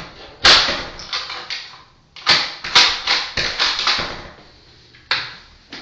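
Restroom door being worked by hand and its stainless thumb-turn lock turned: a run of sharp metallic clicks and knocks in two bursts, with one more knock near the end.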